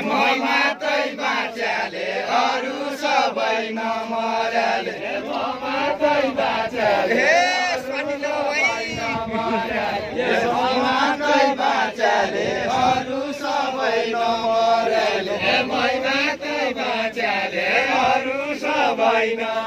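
A group of dancers singing a Deuda, the far-western Nepali folk song of the Bajura region, in unison, a chanted melody going in short phrases that repeat over and over.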